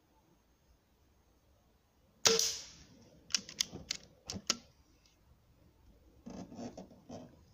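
A single shot from a Hatsan Galatian .22 PCP air rifle about two seconds in, followed by a quick series of sharp metallic clicks as its side lever is worked to cycle the next pellet. Softer handling sounds follow near the end.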